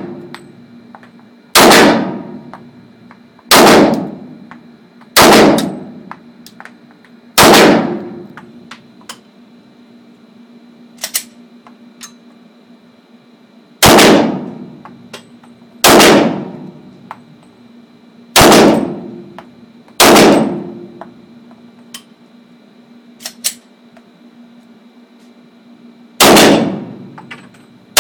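Glock 9mm pistol fired nine single shots at a measured pace, about two seconds apart in three strings with pauses of several seconds between them. Each shot is loud with a short echoing decay, and there are a few faint clicks between shots.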